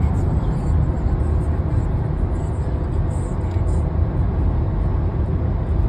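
Steady road and engine noise heard inside a car cruising on a highway, a constant low rumble with no change in pace.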